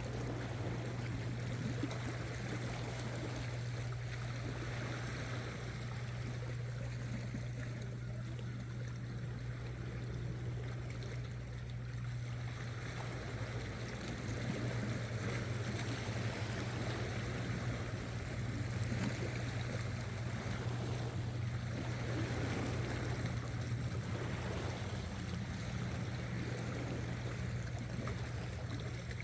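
Sea water washing and lapping against shore rocks in slow swells, over a steady low hum.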